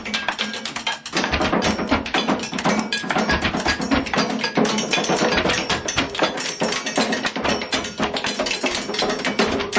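Fast, dense drumming on kitchen objects: rapid clattering strikes in a steady rhythm, getting fuller and heavier about a second in.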